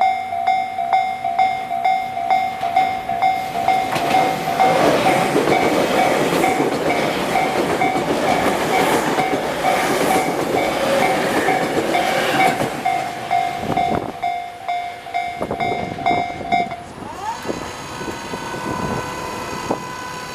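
Japanese railway level crossing's electronic warning bell ringing in a steady repeating ding, a little over two a second, while a train passes over the crossing with heavy wheel noise from about four to thirteen seconds in. The bell stops about seventeen seconds in, leaving a rising whine that settles into a steady tone.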